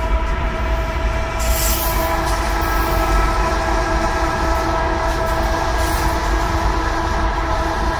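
Locomotive air horn, a Nathan P5 five-chime, blowing one long held chord over a low rumble.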